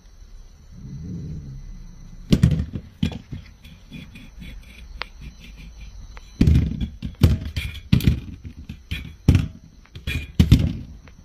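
A series of irregular thuds and knocks, a couple about two seconds in and then a quick cluster of them in the second half.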